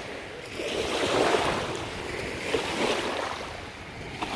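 Sea waves breaking and washing up on a beach, the rush of surf rising and falling in two swells.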